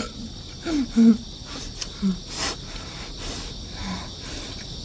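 A woman eating ravenously with her fingers, chewing a mouthful and letting out a few short grunts and snorts through it.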